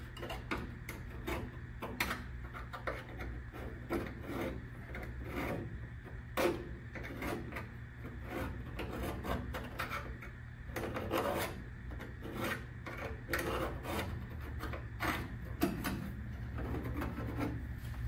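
A sharp steel scribe scratching around the edge of a hole cut in a car door's sheet-steel skin, marking its outline onto a patch of scrap sheet steel held behind it: a run of short, irregular scratches over a steady low hum.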